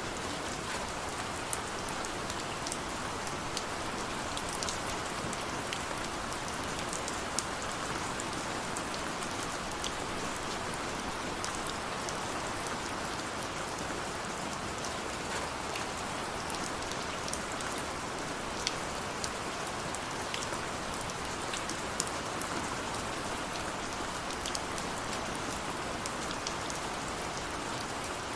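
Steady rain falling, a constant hiss with scattered individual drops ticking sharply on a hard surface.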